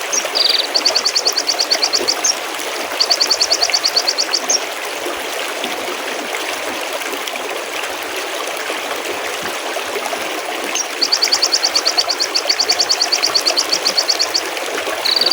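Mountain stream babbling steadily over rocks, with a small bird's rapid high trills breaking in several times, the longest lasting about four seconds near the end.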